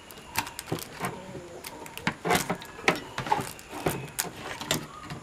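Irregular clicks and knocks of a replacement flyback transformer being pressed into place on a CRT TV's circuit board, its pins being worked into the board's holes.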